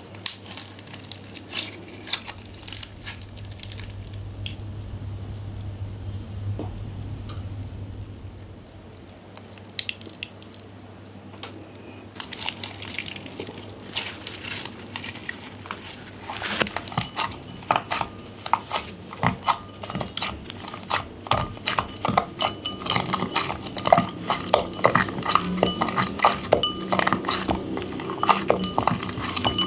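Clear glitter slime with mini slimes being mixed and pressed, giving sharp wet clicks and pops. The clicks are sparse at first and become dense and louder from about halfway through.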